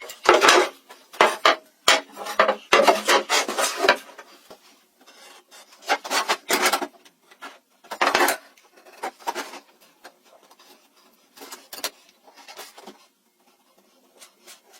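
Scraping, rubbing strokes on wood, like hand sanding or rasping. The strokes come in quick runs for the first four seconds, then more sparsely and more faintly toward the end.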